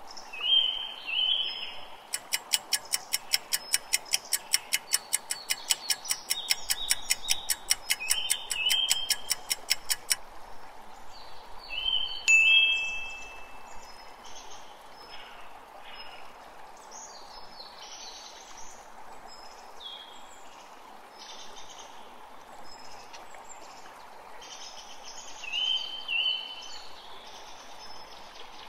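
Background nature ambience of birds chirping over steadily running water, with a rapid even ticking, about four ticks a second, running from about two seconds in to about ten seconds in as a countdown timer.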